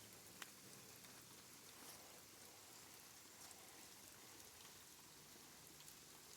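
Faint, steady patter of water after heavy rain, with a few sharp ticks.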